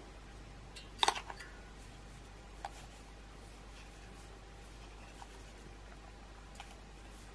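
Light clicks and clinks from handling the metal parts of a homemade tin-can alcohol stove: a short cluster about a second in, then a single click a couple of seconds later and two faint ticks near the end.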